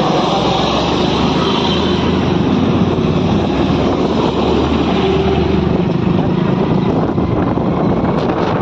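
Hero motorcycle riding along with its engine running under a steady rush of road and wind noise, while a truck's deep engine rumble passes close alongside and drops away after about six seconds.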